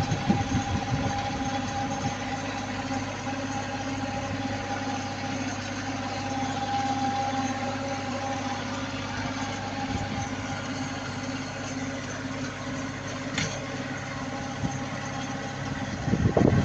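Engine of a land-milling machine running steadily with an even hum while milling a plot of ground. Louder irregular low rumbling comes at the very start and again near the end.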